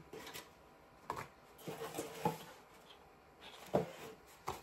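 Light clicks and knocks of the plastic pieces of a multi-device charging stand being handled and fitted together: a few scattered taps, the sharpest one near the end.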